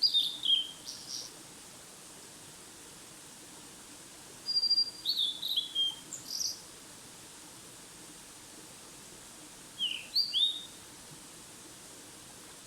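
A songbird singing short phrases of high, quick whistled notes, three times with pauses of a few seconds between, over a steady background hiss.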